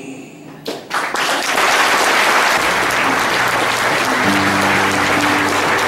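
Audience applause that starts about a second in and swells to a steady, loud clapping. About four seconds in, a low sustained musical note comes in underneath it.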